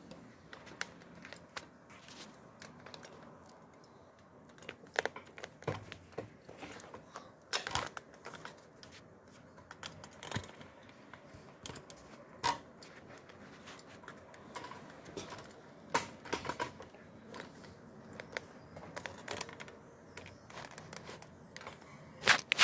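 Handling noise from a hand-held phone being moved about: scattered soft clicks, knocks and rubbing, with a louder cluster of knocks near the end.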